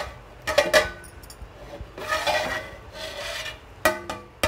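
Aluminium lid scraping against the rim of a large aluminium cooking pot as it is worked off with a cloth, with several sharp metallic clanks that ring briefly, one near the start and two near the end.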